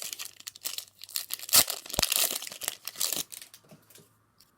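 Plastic foil booster pack wrapper being torn open and crinkled in the hands, a dense run of crackling that dies away after about three seconds.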